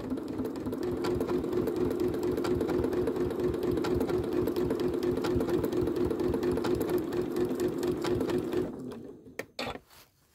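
Janome sewing machine stitching the edge of an appliqué: a steady motor hum with a fast, even run of needle strokes, which stops about nine seconds in, followed by a couple of light clicks.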